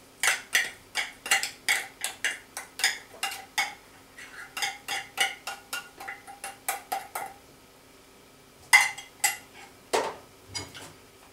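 A utensil scraping and clinking against a tin can as tinned fish is mashed and scraped out into a stainless steel rice-cooker pot: a quick run of sharp metallic clinks, about two to three a second for the first seven seconds, then a short pause and a few louder knocks near the end.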